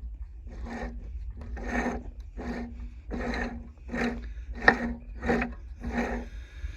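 Sickle-bar mower knife scraping back and forth through its guards in slow, even strokes, about nine of them, roughly one and a half a second, as the knife timing is checked after a weld repair.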